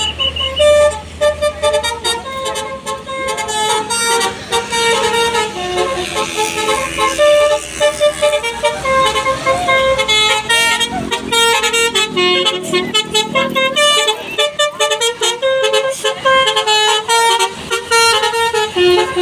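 Bus's Basuri multi-tone telolet horn playing a quick melody of short horn notes, over the low rumble of the bus engine, which fades about two-thirds of the way through.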